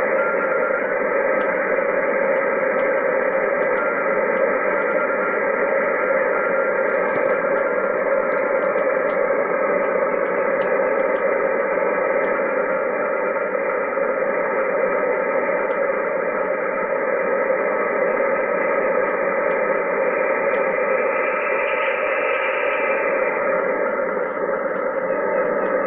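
HF shortwave receiver tuned to military Morse code traffic: a steady hiss of band noise with several Morse tones at different pitches keying at once. A faint high triple beep recurs every seven or eight seconds.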